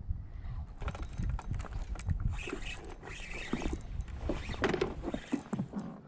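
Steady low rumble, like wind buffeting the microphone, with many scattered clicks and rattles, the sound of gear being handled.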